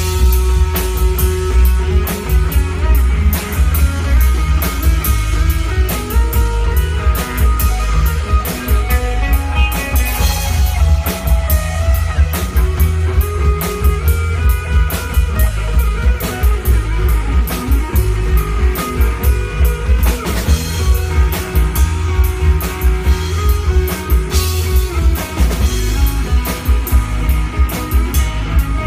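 Instrumental math rock played live on a Telecaster electric guitar and a drum kit. Shifting, busy guitar lines run over steady, dense drumming.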